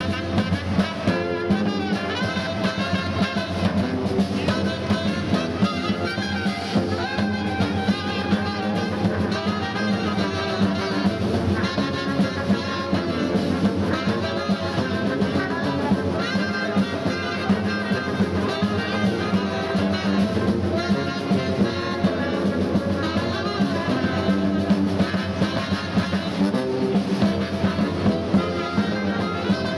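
A live brass band playing a dance tune with a steady beat: sousaphone bass under trumpet, trombone and saxophone.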